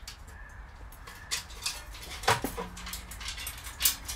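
A handful of small sharp metal clicks and clinks as retaining clips are worked onto the folding steel legs of a tent wood stove, the loudest about halfway through.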